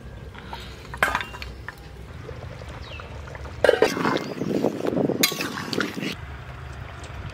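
A sharp metal clink about a second in, then a ladle stirring through boiling fish curry in an aluminium pot, splashing and scraping against the pot for a couple of seconds from about halfway.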